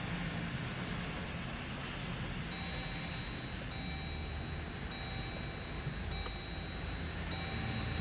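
Low rumble of a Jeep Gladiator (JT) rolling slowly at low speed, heard from inside the cabin. About two and a half seconds in, a vehicle's electronic warning chime starts repeating about once a second.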